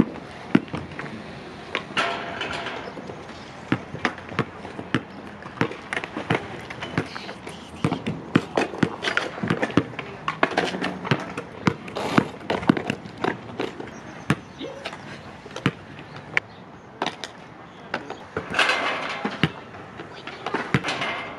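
Basketball being dribbled on an asphalt court: a long run of sharp, irregularly spaced bounces. There are two short stretches of hissing noise, about two seconds in and near the end.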